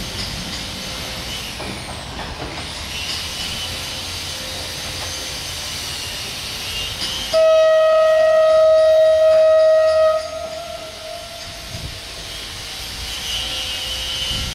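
PESA SA135 diesel railcar running as it pulls away, then one long horn blast of about three seconds, a single steady tone, starting about halfway through.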